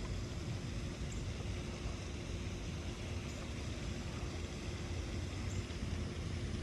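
Steady outdoor background rumble, mostly deep, with a faint constant hum running under it and no distinct events.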